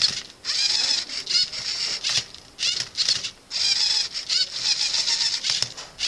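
LEGO Mindstorms NXT servo motors whining in quick bursts as the MindCuber robot's arm flips and its turntable turns the Rubik's cube. The pitch wavers within each move, with short pauses between moves.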